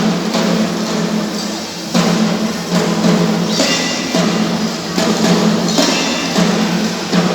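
Marching drum band playing: drums and other percussion strike a beat over music.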